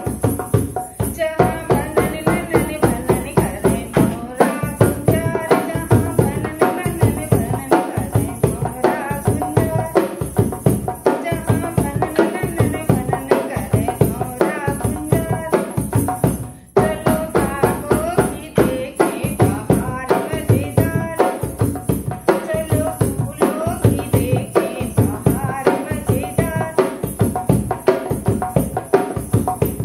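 A woman singing a Hindi folk song while playing a dholak, a steady drum rhythm under her voice. The music breaks off for a moment about seventeen seconds in, then carries on.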